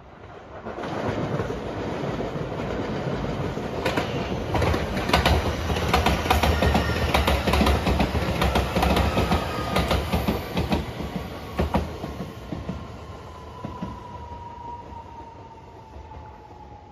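A JR West 227 series electric train passing close by, its wheels clicking over the rail joints. It then fades as it draws away, with a whine that falls slowly in pitch.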